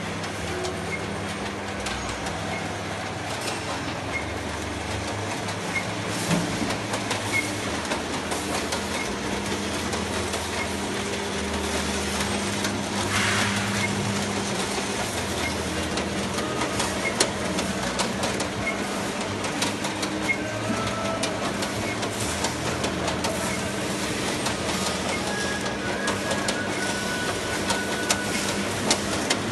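Kiwifruit sorting and grading machine running: a steady hum from the drive and conveyors, with many small clicks and knocks from the rollers and sorting cups, and a short burst of noise about halfway through.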